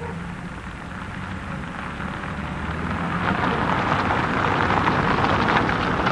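Car driving slowly up on a wet, slushy road: tyre hiss that grows steadily louder as it draws near, over a steady low hum.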